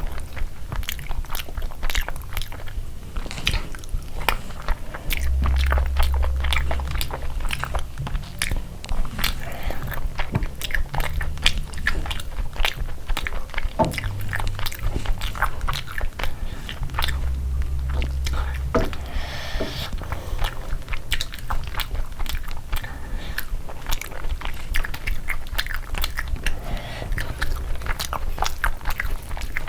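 Close-miked eating: steady chewing with many sharp crunches from crisp food, a mukbang-style eating sound.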